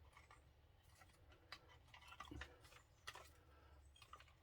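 Faint, irregular clicks and taps of small kit parts being handled and fitted during assembly of an RC model car, with one soft low knock a little over two seconds in.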